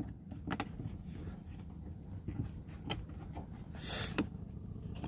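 A plastic fold-out cup holder on a boat console handled and flipped open, a short rustling click about four seconds in. Under it is a few faint handling clicks and a low steady rumble.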